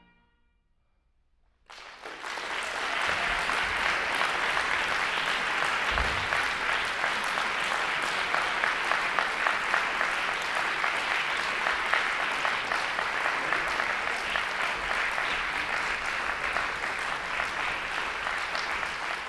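About two seconds of silence, then an audience's applause starts suddenly and continues steadily.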